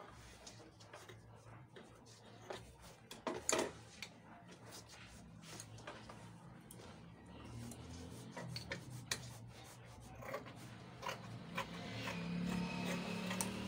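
Satin fabric rustling, with scattered light clicks, as thin plastic boning is pushed through a sewn channel in the fabric.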